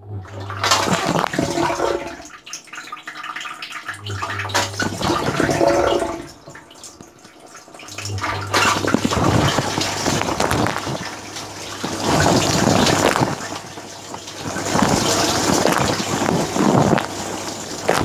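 Electrolux dishwasher's wash pump humming, with water spraying and splashing over the racks and dishes, heard from inside the tub. The hum cuts in and out twice in the first few seconds, then runs steadily from about eight seconds in, as the wash cycle gets going.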